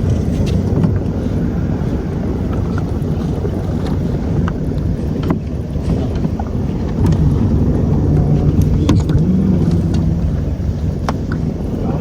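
A boat's engine running steadily, a low, even rumble.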